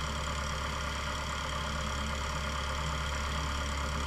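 Cessna Skyhawk's piston engine and propeller running at low taxi power, a steady, even drone.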